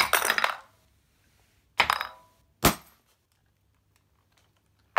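Sharp clinking knocks of a metal tool and glass as a glass LED filament bulb in a plastic bag is struck on a wooden floor: three hard hits, the third with a dull thud.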